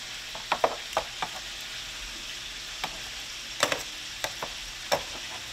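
Steady sizzle of chicken frying in hot canola oil, with scattered sharp clicks and pops.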